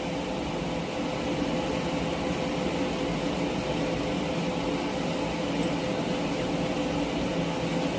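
A running machine's steady hum with one held tone, unchanging throughout.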